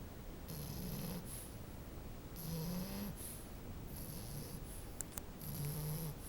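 French bulldog puppy snoring in its sleep: four snores in a steady rhythm, about one every second and a half, each a low buzzing rattle with a thin high whistle.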